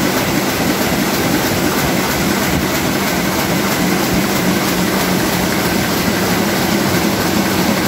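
Komori Lithrone L432 four-colour sheet-fed offset press running: a steady, loud mechanical noise of its drive and rollers, with a low hum and a faint high whine held throughout.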